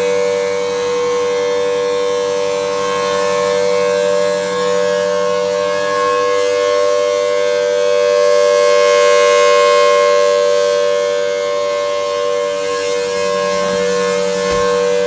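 Federal Signal Thunderbolt 1000T outdoor tornado warning siren sounding a steady tone during a test. The pitch holds level while the sound swells louder through the middle and eases back. A short low thump comes near the end.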